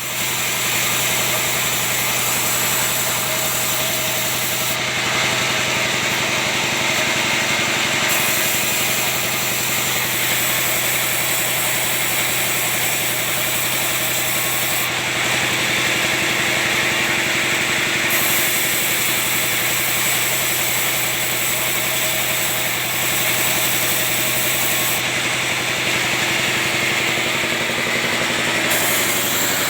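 Sawmill band saw (benso) running steadily while cutting pine. Its hiss thins out for a few seconds about every ten seconds, a regular cycle of passes through the wood.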